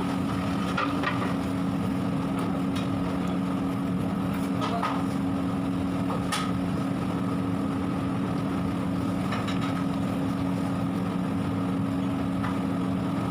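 A steady, low mechanical hum, as from a motor or fan, with a few scattered light clicks and taps.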